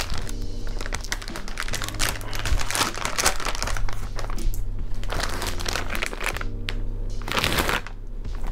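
Crinkling of an iridescent plastic mailer bag and paper wrapping being handled and pulled apart, over background music with a steady bass line.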